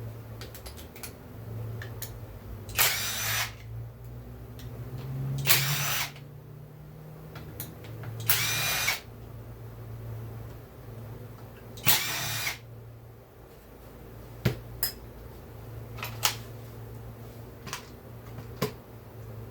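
A cordless power driver spins four times in short bursts, backing out bolts. Small clicks of parts and tools being handled come between the bursts.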